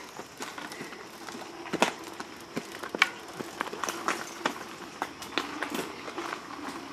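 Mountain bikes on a steep dirt trail climb: irregular clicks, knocks and rattles of tyres and drivetrains on dirt, with two sharper knocks about two and three seconds in.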